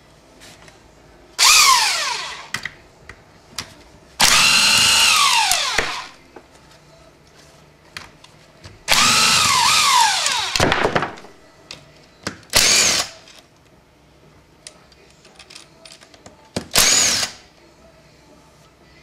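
Handheld power drill-driver run in five short bursts, spinning out the back-housing bolts of an automatic transmission case; each time the trigger is released the motor's pitch falls as it winds down.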